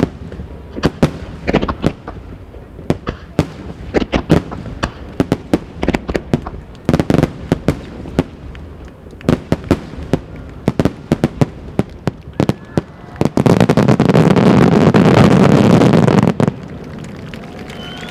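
Large aerial firework shells bursting in quick succession as one sharp boom after another. About thirteen seconds in they merge into a dense, continuous barrage for about three seconds that cuts off suddenly.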